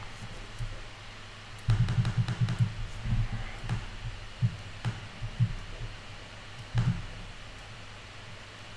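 Computer mouse and keyboard clicks with light knocks on a desk: a quick cluster about two seconds in, then single clicks spread irregularly until near the end.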